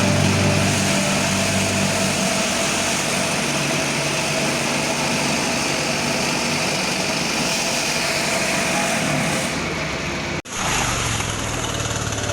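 Concrete cutter's engine running steadily, with a broad hiss over it. About ten seconds in the sound breaks off abruptly, then the engine is heard running again.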